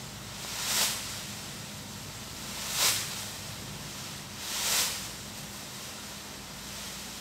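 A plastic costume swishing as the arms sweep it: swells of rustling whoosh about two seconds apart, one about a second in, then near three and near five seconds in, over a steady low hum.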